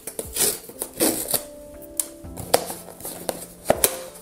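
Cardboard blind box being handled and its top flap pulled open: a scatter of light taps, clicks and paper rustles, over background music.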